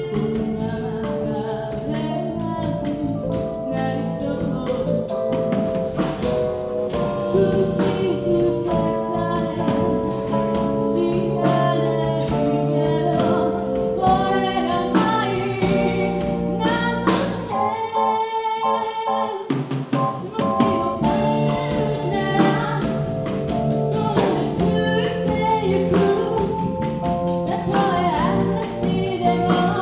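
Live band of keyboard, electric bass, electric guitar and drum kit playing a pop song while a woman sings. About eighteen seconds in, the bass and drums drop out for about two seconds, then the full band comes back in.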